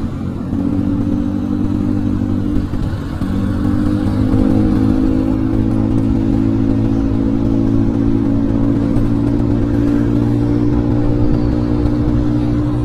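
Motor scooter engine running while riding, picking up revs about three seconds in and then holding a steady hum.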